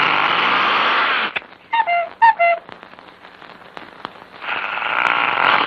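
Cartoon gorilla roar, a loud rasping noise, that breaks off about a second and a half in. Two short pairs of falling squeaky notes follow, and the roar swells back in about a second before the end.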